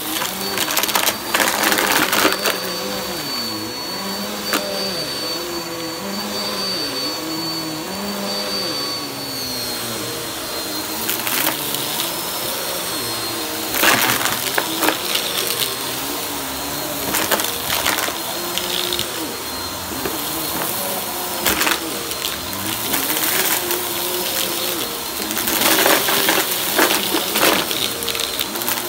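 Bagless upright vacuum cleaner running steadily with a high whine and a wavering hum, as shredded tissue paper rattles and crackles up the nozzle in bursts, most thickly about 11 to 14 seconds in and again near the end.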